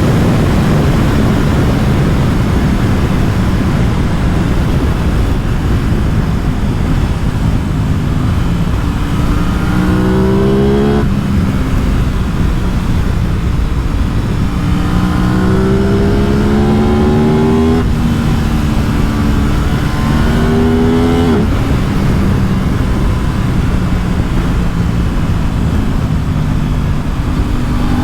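Aprilia RS 660 parallel-twin engine accelerating hard in several pulls, its note rising through each gear and dropping sharply at each upshift, with steady wind rush throughout.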